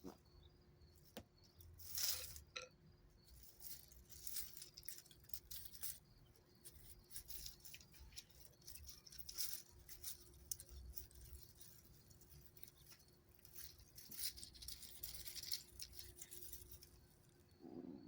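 Faint, irregular rustling and scratching, in short bursts, over a faint steady hum.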